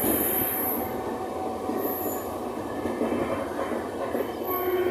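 Passenger train wheels running on the rails through a curve, heard from an open coach door: a steady rumble with high-pitched wheel squeal near the start and again about two seconds in.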